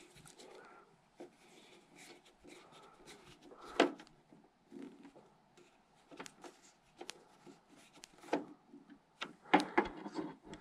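Small screwdriver turning the tiny lamp-retaining screws in a projector's plastic lamp bay: faint scraping and light plastic clicks, with one sharper click about four seconds in and a few more clicks near the end.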